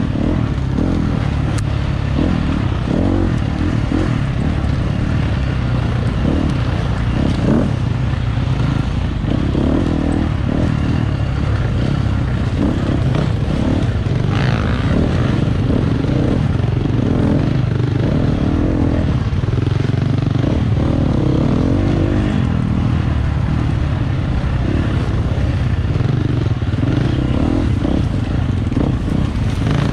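Dirt bike engine running hard, its revs rising and falling continually as it is ridden.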